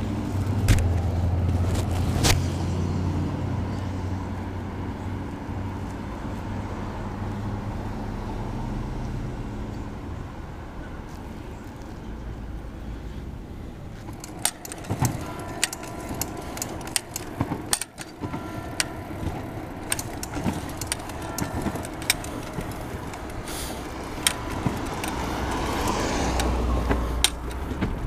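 A motor vehicle's engine hum fading away over the first ten seconds. From about halfway on, a bicycle ride: the bike and its load rattling and clicking over bumps in the road.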